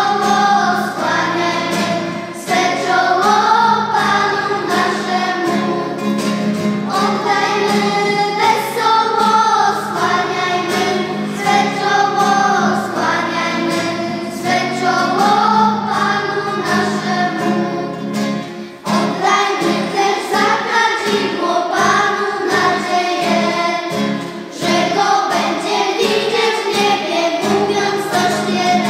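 Children's choir singing a church song, accompanied by an acoustic guitar. The singing pauses briefly twice in the second half, between phrases.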